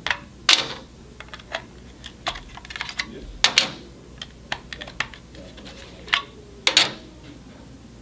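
Small screwdriver prying snugly fitted AAA batteries out of the battery compartment of a 2GIG SMKT3-345 wireless smoke detector. It makes a run of irregular plastic and metal clicks and clacks, with a few sharper snaps.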